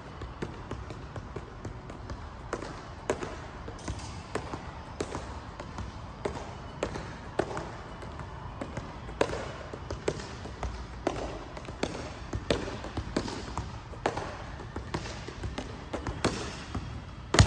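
Soccer ball being juggled by foot and knee: a running series of short thuds, about one or two touches a second, in a large indoor hall, with one louder thud near the end.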